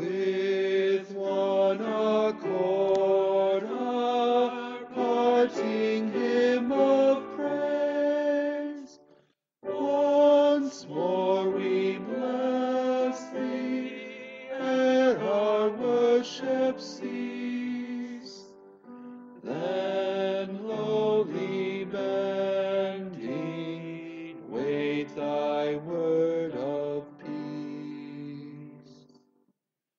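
A slow hymn sung in long held notes, in phrases of about ten seconds with a short breath between them. The first verse ends near the end and the second begins.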